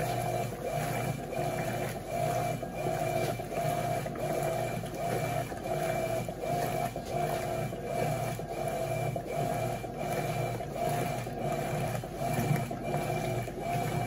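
Electrolux LT12F top-loading washing machine agitating a soaked load, its agitator swinging back and forth with a motor-and-transmission whine that pulses at about two strokes a second, with water sloshing in the tub.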